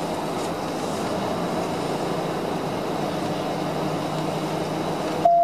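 Steady road and engine noise inside a patrol car driving at speed. Near the end a short, loud steady beep sounds once.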